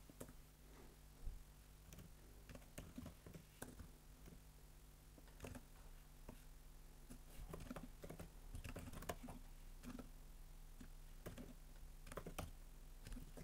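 Faint typing on a computer keyboard: irregular key clicks scattered throughout, over a faint steady low hum.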